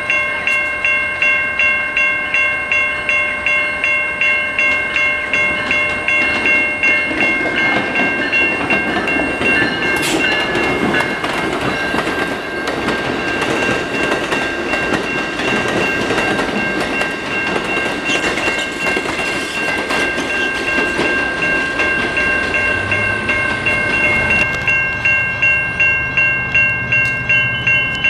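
A warning bell rings steadily at about two strokes a second while an Amtrak Cascades passenger train, hauled by a Siemens Charger locomotive, passes with wheel and rail noise through the middle. Near the end the low drone of an approaching CN diesel locomotive comes in.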